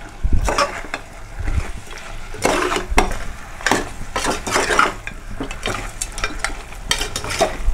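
Metal ladle stirring thick mutton curry in a pressure cooker, scraping and clinking against the pot's side in irregular strokes, over the sizzle of the frying masala.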